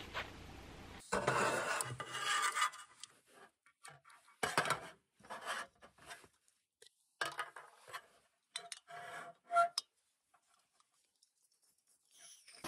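Handling noise: a series of short rubbing and scraping strokes, with a brief metallic ring near the end.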